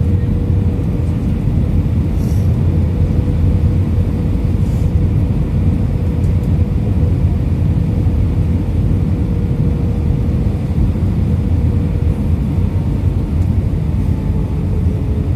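Airbus A320 cabin noise over the wing on final approach with flaps extended: a steady low rumble of engines and airflow, with a faint steady hum that fades about twelve seconds in.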